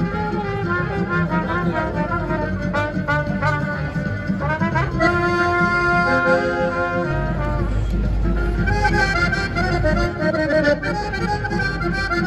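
Accordion and trumpet playing a tune together, with a long held chord about five seconds in.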